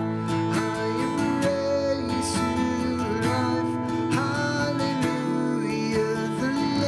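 Slow worship song: strummed acoustic guitar with a sung melody over it.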